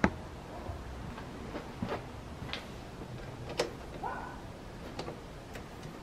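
Scattered light clicks and taps, about half a dozen at uneven spacing with the sharpest right at the start, from hands handling the plastic coolant reservoir and fittings under the hood.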